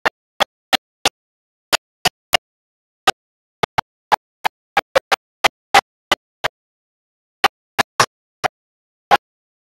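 Broken-up audio: short clipped snippets of sound, two or three a second at uneven spacing, each cut off into dead digital silence, as from a recording full of dropouts.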